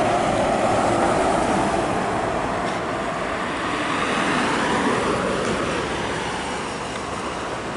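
Volvo VM refrigerated box truck driving past on an asphalt highway and pulling away: engine and tyre noise, loudest at the start and slowly fading as it recedes.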